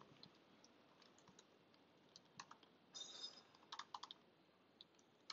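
Faint typing on a computer keyboard: irregular key clicks, busiest about three to four seconds in.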